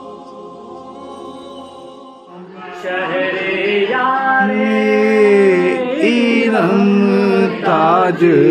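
A man singing a devotional Urdu salam (naat-style) in long, drawn-out melodic phrases, starting loudly about two seconds in. Before that there is a quieter steady held tone.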